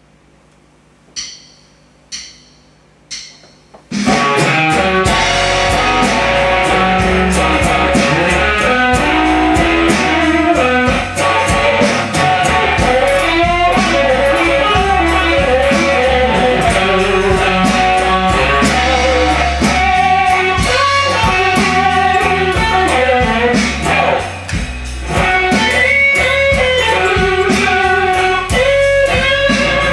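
Three sharp clicks counting in, then a slow blues starts in full about four seconds in: an amplified electric guitar playing lead lines over bass and drums.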